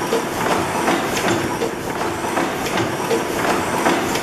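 600-horsepower Snow horizontal natural gas engine running, a steady mechanical clatter with regular clicks about two or three times a second.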